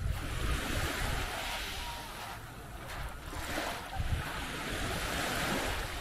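Small sea waves washing onto a sandy beach, the surf swelling and fading twice, with wind gusting on the microphone.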